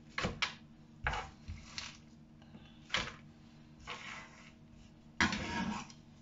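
Chopped iceberg lettuce being scooped and scraped from a wooden cutting board into a plastic bowl, with knife knocks on the board. It comes as a string of short rustles and knocks: a sharp knock about three seconds in and a longer, louder scrape near the end.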